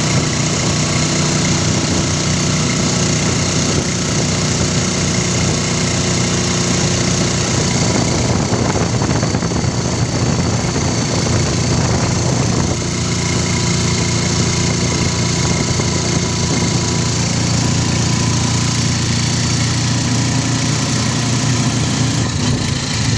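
Motorcycle engine of a tricycle running steadily under way, heard from the sidecar along with road noise. For a few seconds around the middle its note turns rougher and less even, then settles again.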